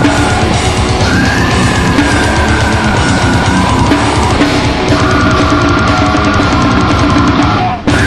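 Heavy metal recording with distorted guitars and drum kit playing loud and dense. It drops out for a split second near the end, then comes straight back in.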